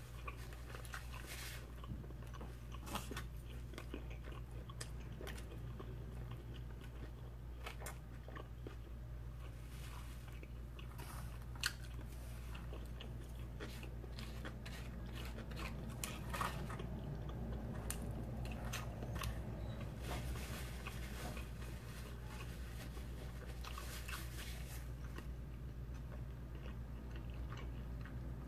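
Close-miked chewing and lip-smacking of a mouthful of stromboli, with short wet clicks and smacks scattered through, the loudest about twelve seconds in. A low steady hum runs underneath.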